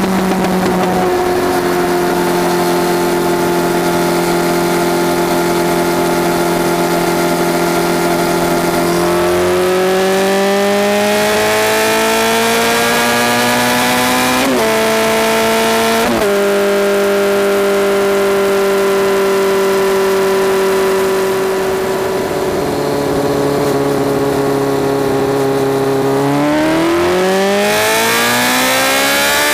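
Honda CBR1100XX Super Blackbird's inline-four engine running loud through a Takkoni exhaust with straight pipes in the mufflers, heard from under the seat while riding. It cruises steadily, rises in pitch as it pulls, dips and recovers sharply about halfway through, eases back, then climbs steeply under hard acceleration near the end.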